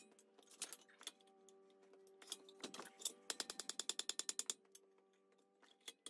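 Hand hammer striking red-hot steel bar stock on an anvil, the anvil ringing after each blow. A few separate blows come first, then about three seconds in a fast run of light blows at about ten a second. This is the forging of a screw blank.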